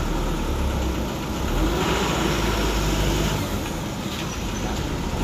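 Motor vehicle engine running with a steady low rumble, under a broad wash of road noise.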